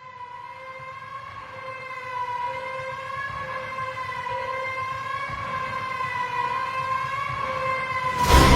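A siren-like wailing tone, held on one slightly wavering pitch and slowly growing louder, until loud music cuts in abruptly near the end.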